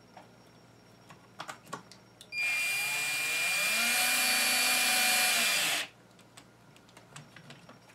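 A cordless drill driving a screw into a scale RC crawler's side rail. It spins up, runs steadily for about three seconds and winds down, after a few light clicks of handling.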